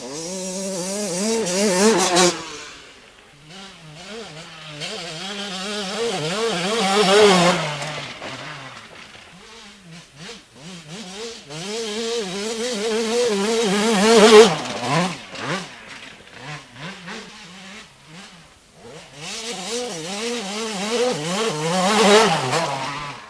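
Small-capacity 80 cc two-stroke enduro motorcycles riding past one after another, each engine revving up and down at a high pitch as the rider works the throttle over rough ground. The sound swells to a loud peak four times and falls away after each.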